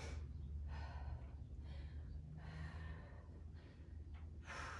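A woman breathing hard and audibly while exercising, with short heavy breaths about once a second.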